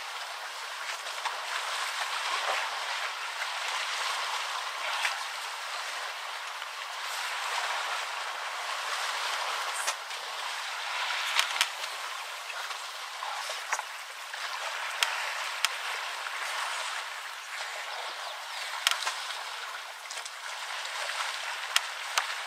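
Muddy water sloshing and splashing as African bush elephants roll and wallow in a waterhole, a steady wash with several short, sharp splashes standing out.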